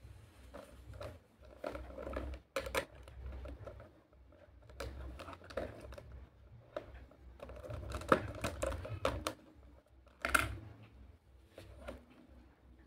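Small plastic toy pieces clicking and clattering as they are handled and set into a plastic toy candy cart, in irregular taps and rattles with a louder clack about eight seconds in and again about ten seconds in.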